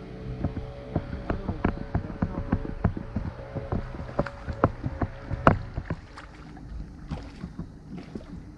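Sounds of a kayak on the water: irregular sharp knocks and clicks against the hull, several a second, over a low steady hum.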